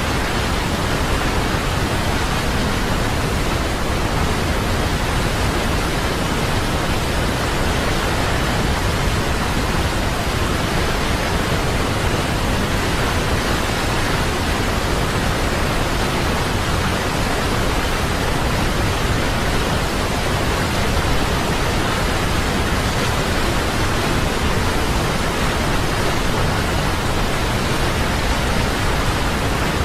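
Waterfall: a loud, unbroken rush of falling water that stays even throughout.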